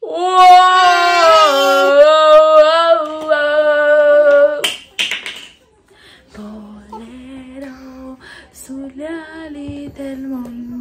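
A young woman singing with no instrument behind her: loud, long held notes for about four and a half seconds, then a short breathy noise, then softer singing on lower notes.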